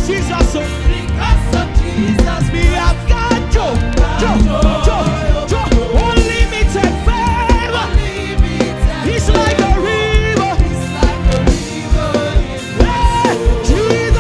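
Live gospel praise band playing an upbeat song with a steady drum beat and pulsing bass, with a voice singing over it.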